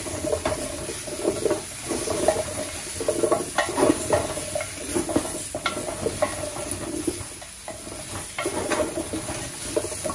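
Silicone spatula stirring potato chunks and corn cob pieces around a large stainless steel pan, with irregular scraping and knocking as the pieces tumble against the metal.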